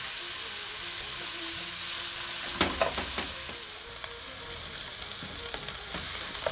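Sliced onions sizzling in hot coconut oil in a pot, frying steadily while a wooden spoon stirs them. The spoon scrapes and knocks against the pot a few times about two and a half to three seconds in.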